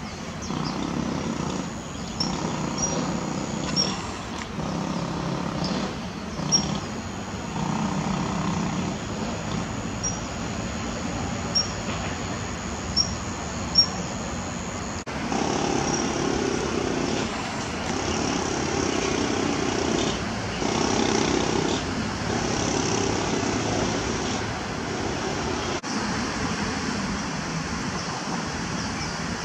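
Steady road traffic noise in the background, with a series of short, thin, high bird calls scattered through the first half and a few sharp ticks.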